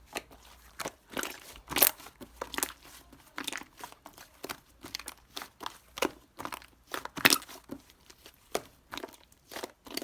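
Irregular close-up crinkling, crunching and tapping noises, a quick run of short sharp sounds with uneven gaps between them.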